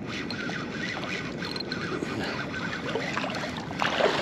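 Shallow water sloshing and wind on the microphone while a hooked bluefish is fought on a spinning rod, with a loud splash near the end as the fish thrashes at the surface.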